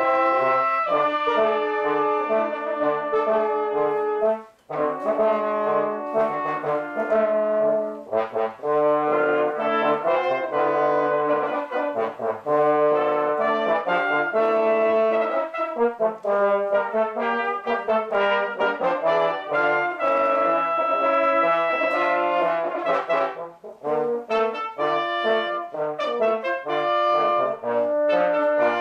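A small brass ensemble of trumpets and trombones plays a piece in chords, with two short breaks, about five seconds in and again near 23 seconds.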